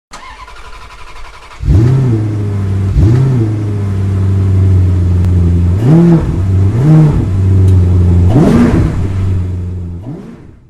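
Car engine idling and revved in about five short throttle blips, each pitch rising and falling back within about half a second. A fainter steady sound comes before the engine sets in, under two seconds in, and the engine fades out near the end.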